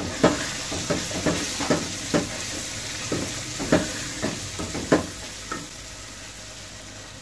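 Wooden spatula stirring onions, tomatoes and ground spices frying in oil in an aluminium pot, knocking and scraping against the pot about twice a second over a steady sizzle. The stirring stops about five seconds in, leaving the sizzle of the frying masala.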